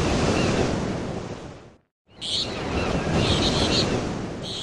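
Surf washing, with small birds chirping over it. It fades out to a moment of silence a little under two seconds in, then comes back.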